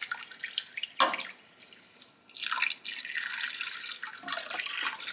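Beef broth poured from a can into a slow-cooker crock over a chuck roast: a couple of short splashes at first, then a steady pour from about halfway through.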